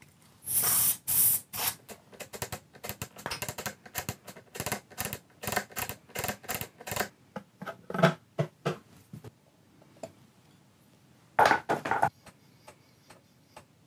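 Aerosol switch-cleaner hissing in two short bursts into a guitar's control cavity, followed by a long run of quick clicks and taps, typical of the switch being worked to spread the cleaner. A short cluster of louder knocks comes near the end.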